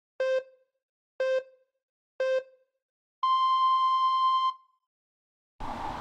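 Countdown sound effect: three short electronic beeps a second apart, then one longer, higher-pitched beep. A steady hiss starts near the end.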